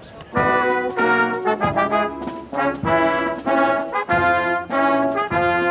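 Loud brass fanfare music, a run of held notes in phrases starting about half a second in.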